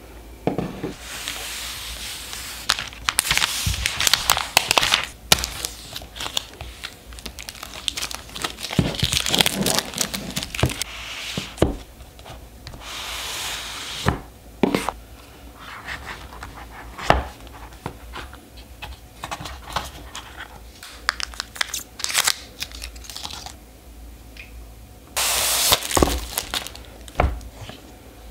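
Cardboard Apple product boxes being handled and opened by hand: seal strips tearing, packaging rustling and lids sliding, with many sharp taps and clicks in between. The loudest stretch of rustling comes near the end.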